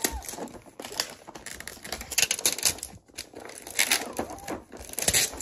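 Toy packaging crinkling and tearing in repeated short bursts as it is pulled open.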